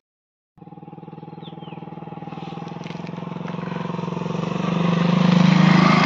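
Commuter motorcycle riding up a dirt road and passing close by, its engine note growing steadily louder to a peak as it goes past near the end, then beginning to fade.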